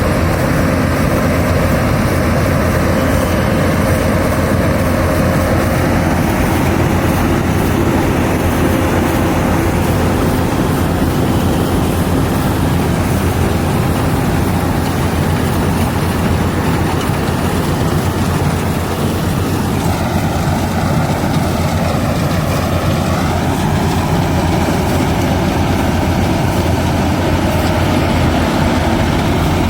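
Yanmar AW82GV combine harvester running steadily: a continuous loud engine and machinery drone. Its tone shifts slightly about twenty seconds in.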